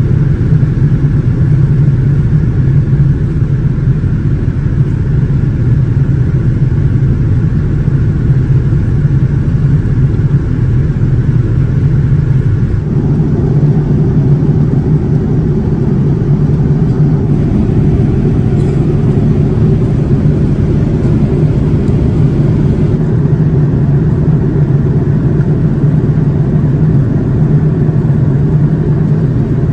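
Steady cabin noise inside a Boeing 787-9 airliner in flight: a deep, even rush of engine and airflow noise. Its tone shifts abruptly about 13 seconds in.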